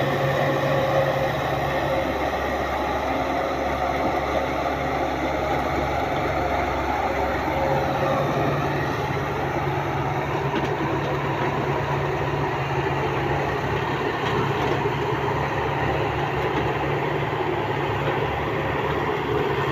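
Heavy machine's diesel engine running steadily with a continuous low drone; the lowest part of the engine note changes between about two and eight seconds in, then holds steady again.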